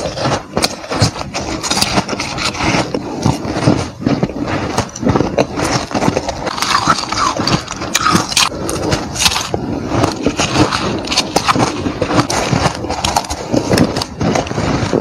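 Close-up chewing of shaved ice: a dense, unbroken run of crisp crunches.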